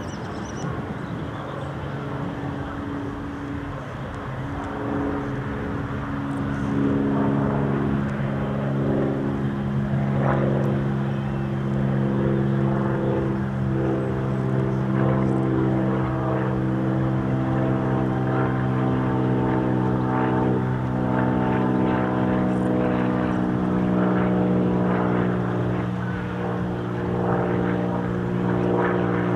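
High-wing single-engine propeller light aircraft flying overhead, its engine and propeller giving a steady droning hum that grows louder about six seconds in and then holds.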